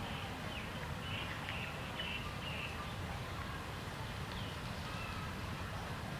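Several faint, short, high chirping animal calls, mostly in the first half, over a steady low outdoor rumble.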